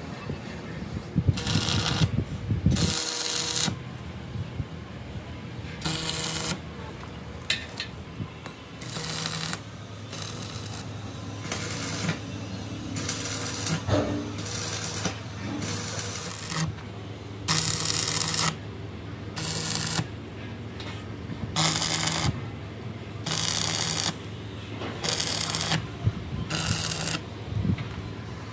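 Wire-feed (MIG) welding gun tack-welding a steel wheel centre's lugs to a tractor rim: about a dozen short bursts of crackling arc, each half a second to a second long, at irregular intervals. A low steady hum runs underneath between the bursts.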